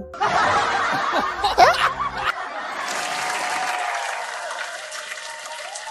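Canned studio-audience laughter and applause. The laughter dies away after about two seconds while the clapping carries on.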